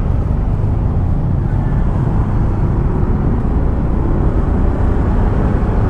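Honda Click scooter being ridden through slow city traffic: a steady low rumble of its engine and road noise, heard from a camera on the moving bike.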